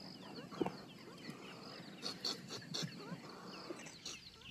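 Faint, rapid high chirping from small wild animals, repeating several times a second, with a few soft clicks about two to three seconds in.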